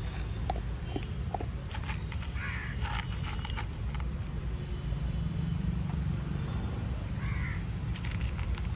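A dog crunching dry kibble from a plastic bowl, with sharp crunching clicks scattered throughout. Crows caw twice in the background, and a steady low rumble runs underneath.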